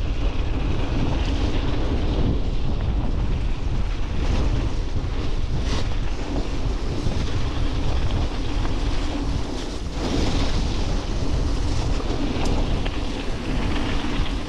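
Steady wind rumble buffeting a GoPro action-camera microphone as a mountain bike is ridden over a wet trail.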